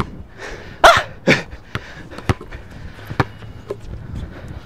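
Basketball bouncing on a hard outdoor court as a player dribbles: a series of sharp, separate knocks about half a second to a second apart, the loudest about a second in.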